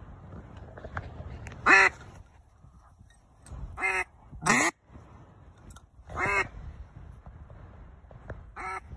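Duck call blown in five loud, separate quacks, the one about six seconds in drawn out longest, to draw passing ducks in.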